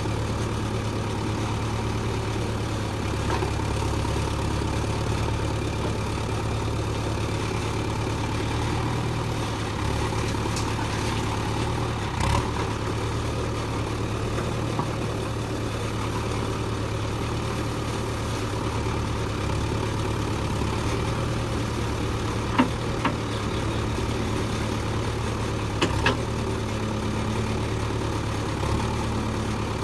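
Heavy diesel engine running steadily, low and even, with a few short sharp knocks about halfway through and near the end.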